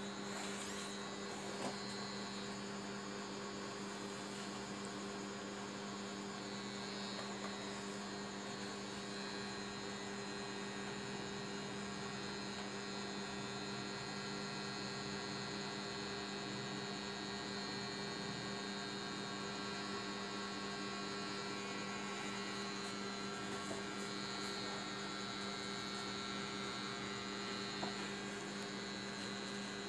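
Electric cartridge tattoo machine running steadily while needling skin: a constant, even hum.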